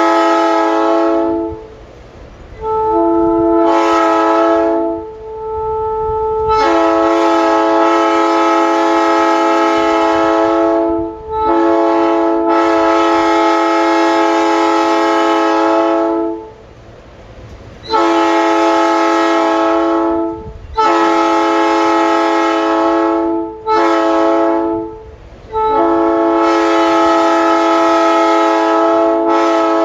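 Three-chime railroad locomotive air horn blown on compressed air in a series of loud chord blasts of one to five seconds, with short gaps between them. The blast a few seconds in starts unevenly, its notes coming in one by one.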